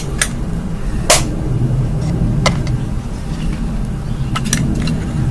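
Sharp clicks and taps of a vape mod's battery being handled, with the magnetic back cover off: one loud click about a second in, another about halfway, and a quick cluster of small clicks near the end, over a steady low hum.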